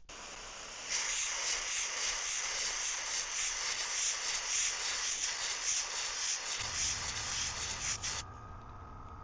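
Airbrush spraying paint, a steady hiss of air that cuts off about eight seconds in. A low hum comes in shortly before the hiss stops and carries on.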